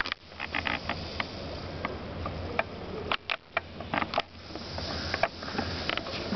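Rain stick being tipped upright, with a pattering rush of beads inside it and many scattered small clicks and taps.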